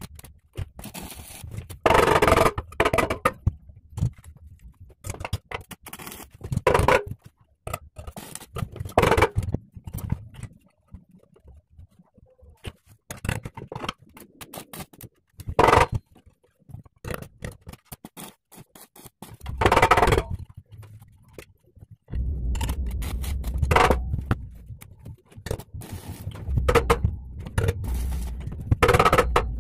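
Metalworking on steel blade stock: irregular clanks and scraping of metal being handled and worked. A steady low hum joins about two-thirds of the way through.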